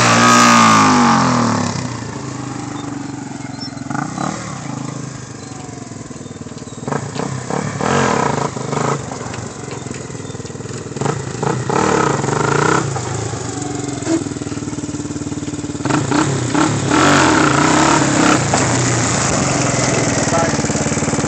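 Yamaha Raptor 350 ATV's single-cylinder four-stroke engine revving and easing off as the quad rides around. It is loud and falls in pitch in the first second as it pulls away, then comes in quieter with repeated bursts of throttle, and is louder again near the end as it comes back close.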